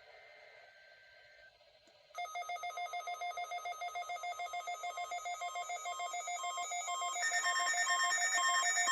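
Electronic alert tone from weather alert radios going off: a rapid warbling beep of several alternating tones, starting suddenly about two seconds in. A second, louder beeping joins about seven seconds in.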